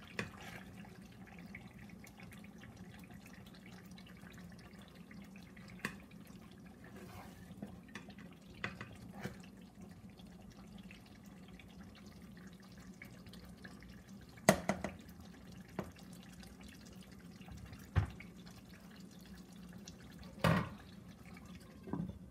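A serving spoon scraping and knocking against the metal pot and the plate as stew is dished out, with a few sharp clinks, the loudest about halfway through, over a steady low hum. Near the end a glass lid is set down on the pot with a clink.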